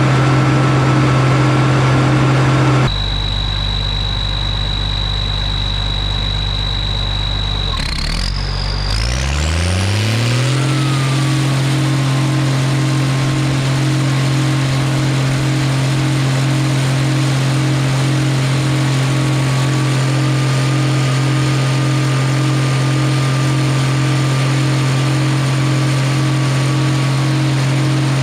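Combine harvester running with a steady drone. About three seconds in, the sound changes abruptly to a lower hum. Around eight to ten seconds in, the pitch rises as the machine speeds back up to a steady run.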